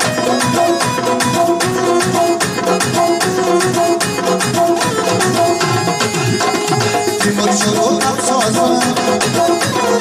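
Live instrumental music: an electronic keyboard plays a melody over a busy, fast hand-drum rhythm on tabla.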